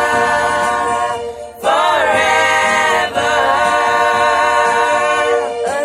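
A cappella vocal group singing in harmony, holding a long sustained chord on "forever", breaking briefly about a second and a half in, then entering a new held chord.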